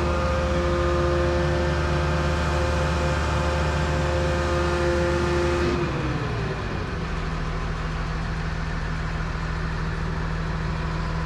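Terex Demag AC200 all-terrain crane's diesel engine running steadily at raised revs. About six seconds in the revs fall away and it settles to a lower, steady idle.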